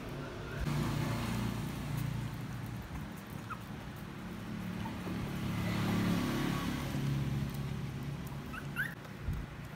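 Puppy whimpering, with a few short high yips near the end over a low steady rumble.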